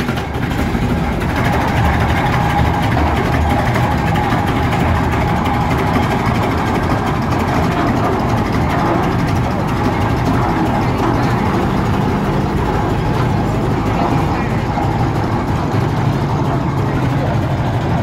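Antique Avery steel-wheeled tractor's engine running steadily.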